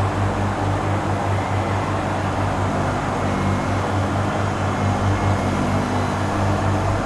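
Zamboni ice resurfacer running steadily: a continuous low engine hum with a slight regular pulse and a noisy wash above it.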